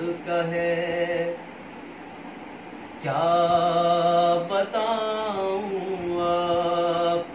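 A man's voice chanting a devotional manqabat in long held notes: one drawn-out phrase, a short pause, then a longer phrase that steps from note to note and holds each one.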